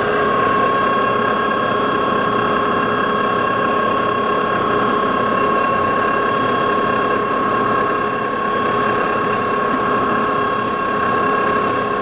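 A machine-shop motor running steadily: a constant mechanical hum with a steady whine over it, unchanging throughout.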